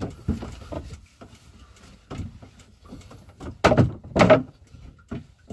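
Irregular knocks and thumps on the wooden hull of a small boat as a person shifts about on board, the two loudest close together near the middle.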